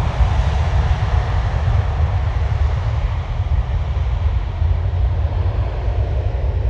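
Jet engine noise from a departing Boeing 777F freighter's GE90 turbofans: a steady deep rumble with a hiss above it that slowly fades as the aircraft moves away.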